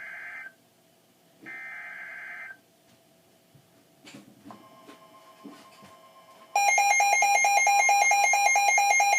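Emergency Alert System data-header bursts: a buzzy, warbling data tone sounds for about a second, twice, with a pause between. After a quieter gap, a loud alert attention tone comes on suddenly near the end.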